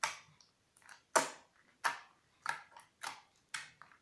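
Homemade glue-and-borax slime pressed and squeezed by fingers on a table, making a series of short wet squelches and pops, about six of them, roughly half a second apart.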